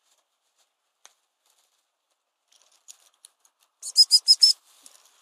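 Gundog whistle blown in five quick, shrill pips, the usual recall signal calling a springer spaniel in. A few faint ticks and rustles come before it.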